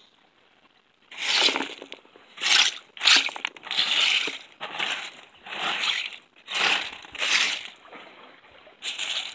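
Wet creek gravel shaken and swished on a wire-mesh sifter screen with water, being washed to search for fossil shark teeth. It comes as about eight rattling, splashing strokes of roughly half a second each, starting about a second in.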